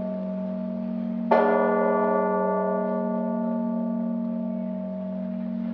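A large church bell struck once about a second in, then ringing out slowly. Under it, the deep hum of earlier strikes goes on sounding throughout.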